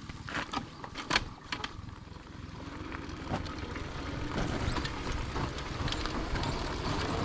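A vehicle engine running and growing gradually louder, its pitch shifting slightly, with a few sharp clicks in the first second or so.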